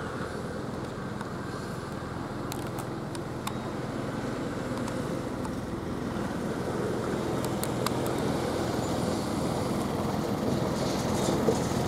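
Heavy diesel trucks running along the road, a steady engine hum that grows gradually louder toward the end, with a few faint sharp clicks.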